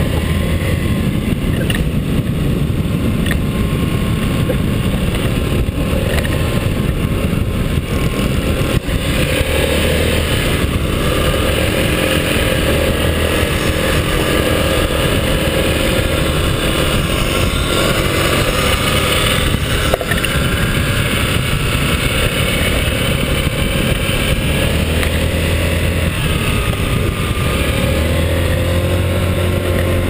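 Small scooter engine running at riding speed, its pitch rising and falling with the throttle, over a steady rush of wind noise on the camera.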